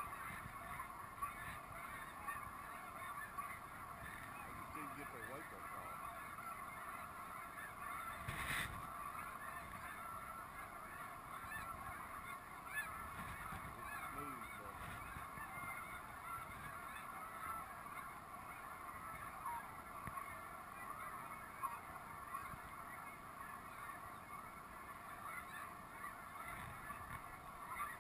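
A large flock of snow geese calling, a faint, steady chorus of many overlapping calls, with a brief knock about eight seconds in.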